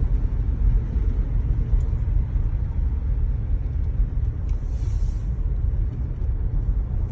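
Steady low rumble of a 2019 Jeep Grand Cherokee driving through snow, heard inside the cabin: engine and tyres on a snow-covered road. There is a brief hiss about five seconds in.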